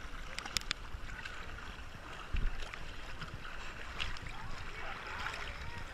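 Small sea waves lapping and splashing against a waterproof action camera held at the surface, with scattered small clicks and a low bump about two and a half seconds in.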